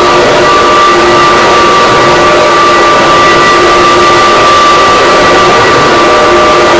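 Vacuum cleaner running steadily, a loud rushing of air with a constant motor whine.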